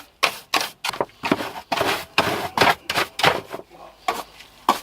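Hand brush sweeping the bare floor pan where a car's rear seat was, in short scratchy strokes about three a second.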